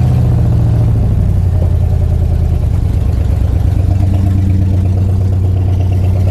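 Old vehicle's engine idling just after a cold start in the snow, running steadily and evening out about two and a half seconds in.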